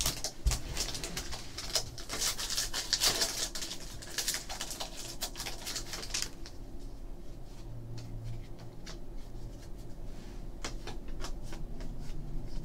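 Foil wrapper of a trading card pack crackling as it is handled and torn open, loudest around two to four seconds in. After about six seconds it gives way to a run of light clicks and slides as the cards are fanned through by hand.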